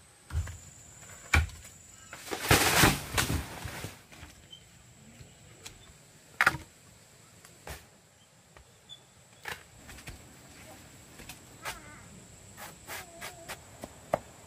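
Knocks and thuds of firewood logs and plant stalks being handled and dropped, with one loud rustling clatter about two to four seconds in. Short chirping bird calls come in faintly near the end.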